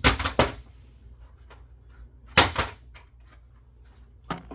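A plastic Lenovo ThinkPad docking station thrown onto the floor to knock its case apart: a quick run of loud bangs at the start, another loud bang about two and a half seconds in, then a few small ticks.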